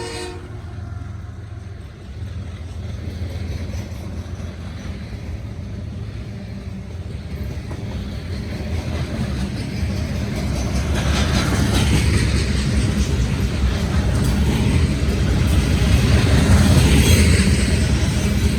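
Freight train of steel-coil cars rolling past at speed: a steady low rumble of wheels on rail that grows louder, with a rising hiss of wheel and rail noise from about halfway through. A horn cuts off right at the start.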